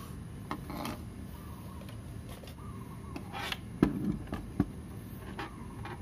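Handling noise from a small circuit board and plastic mouse parts: scattered light clicks, taps and rubbing, with two sharper knocks about four seconds in.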